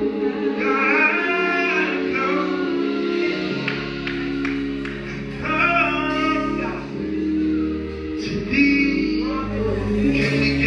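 Church praise team of men and women singing a gospel song over instrumental accompaniment, with long held bass notes under the voices.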